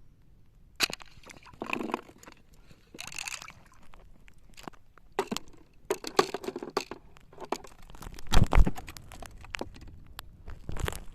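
Irregular crunches, clicks and wet scuffs of someone moving and handling things in shallow water at low tide, with a heavy low thump about eight and a half seconds in.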